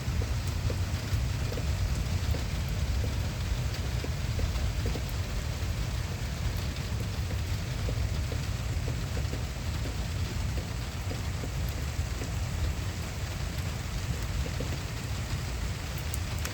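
Steady rain falling in a severe thunderstorm, with scattered drop ticks and a continuous low rumble underneath.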